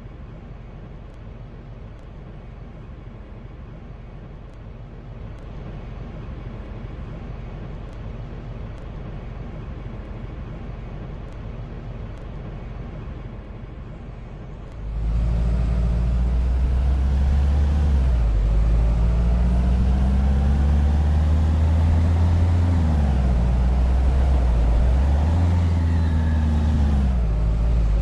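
A vehicle's low, steady rumble. About halfway through it cuts abruptly to a much louder vehicle drive sound, whose pitch rises and falls several times as the vehicle speeds up and slows.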